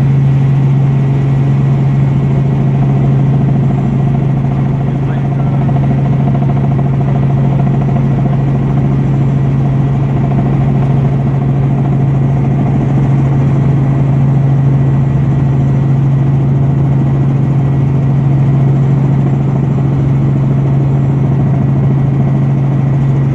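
Robinson R44 Raven I helicopter's Lycoming piston engine and rotors running steadily, a loud, unbroken drone with a strong low hum.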